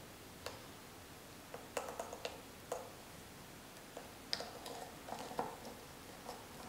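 Faint, irregular small clicks and ticks, a few around two seconds in and a looser cluster a little after four seconds, as e-liquid drips onto the cotton wick and coils of a rebuildable dripping atomizer.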